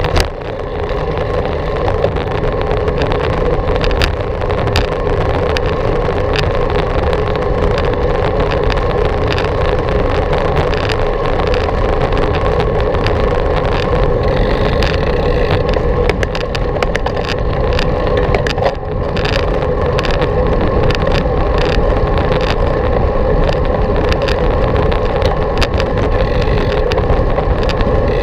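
Steady wind and tyre rumble of a bicycle ride picked up by a GoPro Hero 4, with frequent small clicks and rattles.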